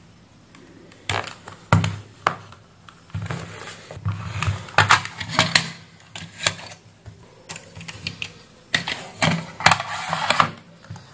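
Irregular plastic clicks and clatter as a shaver is handled and a plastic screwdriver-bit case is opened, with metal bits rattling in their slots as one is picked out. The clicks come in bunches, thickest near the middle and again near the end.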